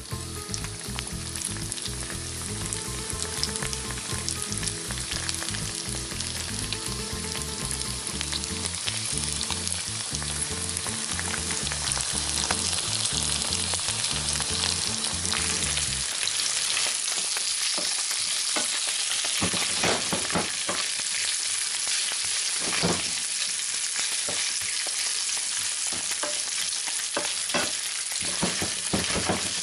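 Chorizo slices sizzling steadily in hot olive oil in a frying pan. In the second half a wooden spatula knocks and scrapes as it stirs them. Low background music plays under the sizzle and stops about halfway through.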